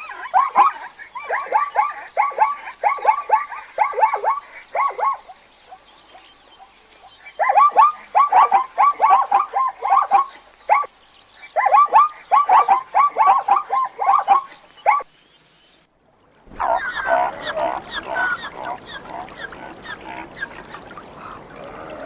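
Plains zebras barking: bouts of rapid, repeated honking yelps, about three a second, in three runs with short pauses between. After a brief break a rougher, noisier sound takes over for the last few seconds.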